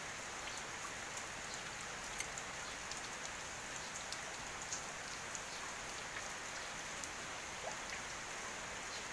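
Steady rain falling on garden plants and grass: a continuous hiss with many scattered sharp drop ticks, a few of them louder.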